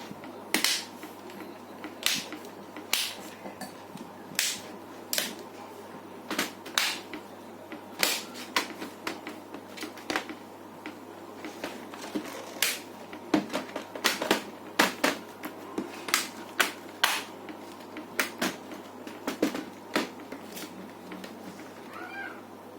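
Irregular sharp clicks and taps of plastic laptop parts and small screws being handled and fitted while a Dell laptop is reassembled, over a steady low hum.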